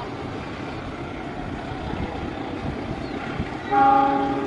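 Electric commuter train approaching with a steady rumble, then its horn gives one short blast of under a second near the end: a driver's greeting toot.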